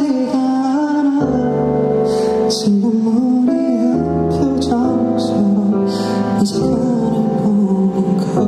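Live solo vocal sung into a microphone: a gentle ballad melody of long held notes with slight glides, over soft instrumental accompaniment with sustained low chords.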